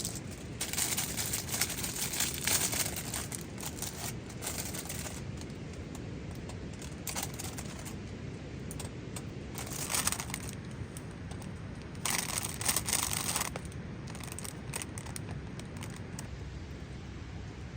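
Several spells of crinkling and rustling, as of something being handled, with small clicks: one long spell over the first few seconds, a short one about ten seconds in, and another about twelve seconds in. Underneath, a steady low background hiss.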